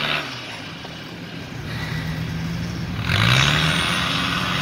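UAZ 4x4's engine, the vehicle stuck in a muddy rut: the revs drop at the start, hold steady at a low speed, then climb again about three seconds in with a louder rush as it tries to power out.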